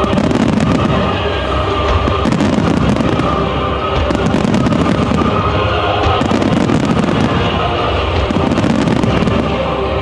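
Japanese display fireworks firing in quick volleys, clusters of crackling bursts coming every second or two, over continuous music played with the show.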